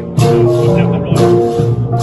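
A Jrai arap gong ensemble playing: flat bronze gongs struck in turn, several pitched notes ringing on and overlapping, with new strokes about once a second.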